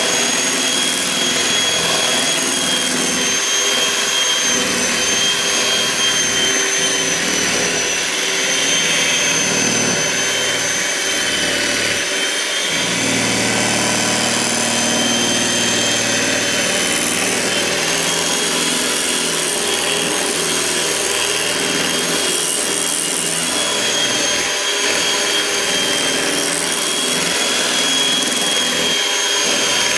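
Electric mixer running steadily, its motor giving a continuous whine, as it beats carrot cake batter.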